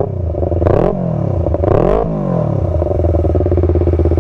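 2016 Yamaha R25's parallel-twin engine, breathing through a Two Brothers aftermarket exhaust, idling. It gives two quick throttle blips that rise and fall in pitch, then settles back to a steady idle.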